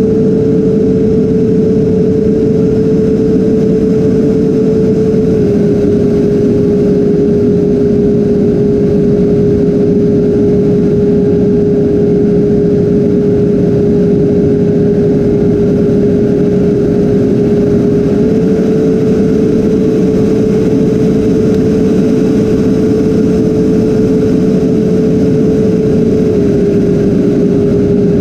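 Freewing A-10 RC jet's twin electric ducted fans running steadily in flight, a loud whine over heavy air rush, heard from the onboard cockpit camera. The whine's pitch steps slightly down a few seconds in, back up about two-thirds of the way through, and down again near the end as the throttle is moved.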